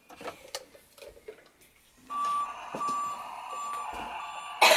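Toy fire truck's electronic sound effect. After a few light clicks of plastic handling, about two seconds in it starts beeping at one steady pitch, about twice a second, over a steady electronic tone. A short loud noise comes near the end.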